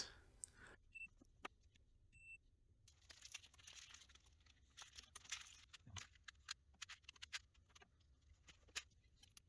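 Near silence: two short, faint high beeps about a second apart, then scattered faint clicks and rustles of small tools and parts being handled on a workbench.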